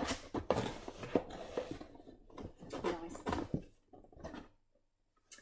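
Paperback books and their packaging being handled: paper and cardboard rustling with light knocks as a book is picked out of the pile, then a pause and a single click near the end.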